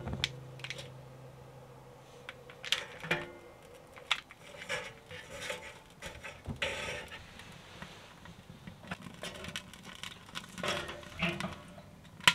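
Scattered metal clinks, knocks and rustling as the door of a small wood-burning tent stove is opened and the fire tended by hand, then the door is pushed nearly shut near the end.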